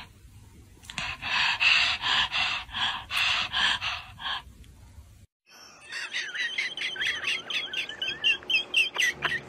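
A long-haired dog panting fast, about three breaths a second. After a break, a run of short, wavering high-pitched whining squeaks follows, several a second, from a dog.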